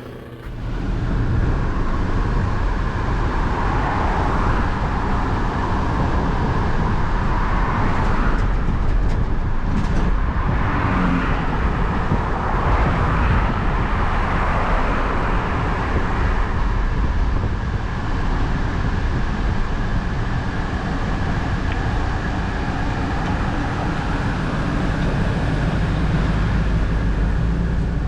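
A motor vehicle on the move: steady road and engine rumble with a broad rushing noise, starting abruptly and holding evenly throughout.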